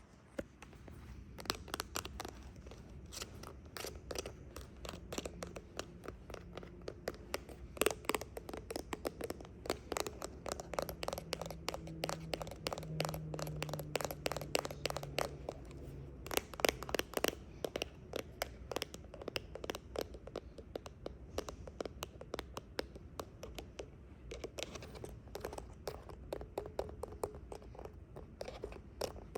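Fingernails scratching and tapping on remote controls and a phone camera in fast, dense strokes, with heavier flurries a third and a half of the way through.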